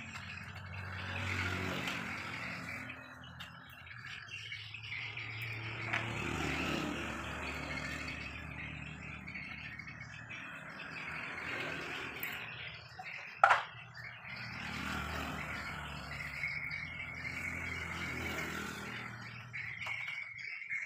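Low background ambience with birds chirping, and quiet handling noises from plastic printer parts being fitted back together. A single sharp click about thirteen seconds in is the loudest sound.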